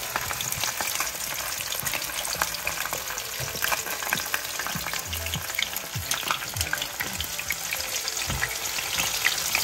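Seasoned snapper frying in preheated oil: a steady sizzle full of small crackles and pops.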